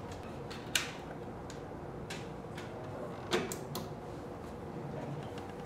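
A handful of small plastic clicks and clacks from a disc being handled and set into a disc device. The loudest clack comes about three and a half seconds in, with a couple of lighter clicks right after it.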